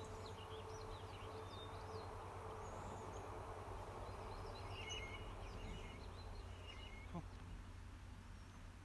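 Small birds chirping faintly and repeatedly over a steady low outdoor rumble; about seven seconds in, a brief sound sliding down in pitch.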